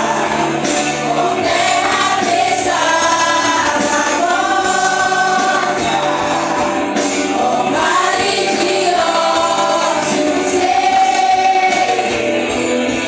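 A vocal group singing a gospel worship song in several voices over instrumental backing, with long held notes.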